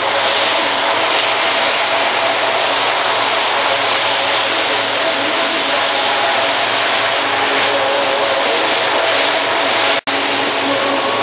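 C-130 Hercules' four Allison T56 turboprop engines running loud as the aircraft rolls along the runway: a steady rush of propeller noise with a high whine on top. The sound cuts out for an instant near the end.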